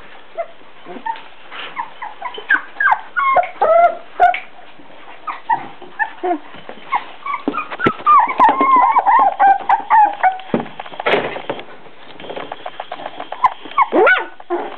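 Four-week-old beagle puppies whimpering and yipping as they play-fight: many short, high squeals that bend in pitch, with a longer run of wavering yelps in the middle.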